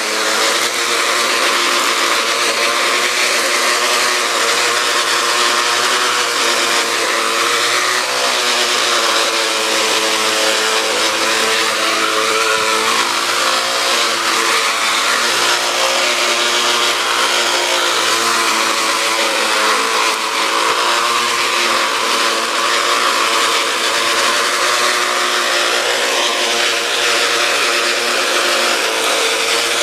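Homemade push mower powered by a Black & Decker electric string-trimmer motor, running steadily with a high whine while its spinning cutter mows grass; the pitch wavers slightly.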